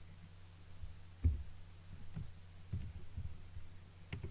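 Steady low electrical hum with a few soft low thumps and faint clicks; the loudest thump comes about a second in, and several more come near the end.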